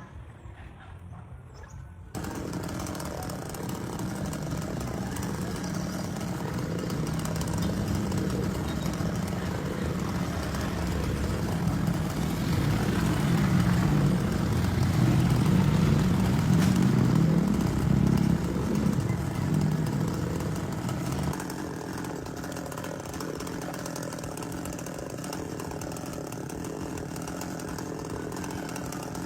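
Chainsaw running: it comes in suddenly about two seconds in, grows louder to a peak near the middle, then drops abruptly to a lower steady level about two-thirds of the way through.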